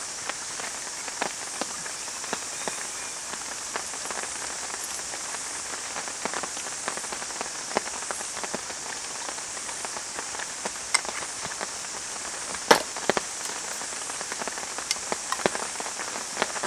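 Light rain falling: a steady hiss with scattered, irregular sharp drop taps, and one louder click about three-quarters of the way through.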